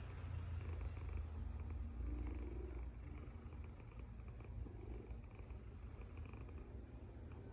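A cat rumbling low and continuously, loudest over the first three seconds and softer after.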